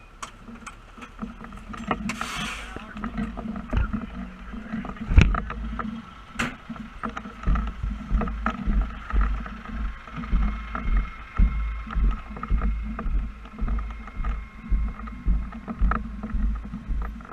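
Engine and road noise inside the cab of a moving fire truck: a steady low rumble with uneven heavy low thumps, and a brief hiss about two seconds in.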